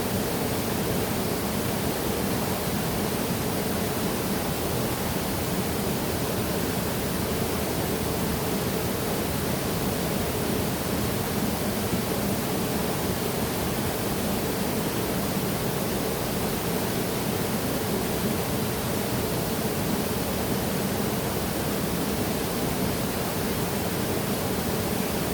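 Waterfall: falling water rushing in a steady, unbroken roar, with no change in level throughout.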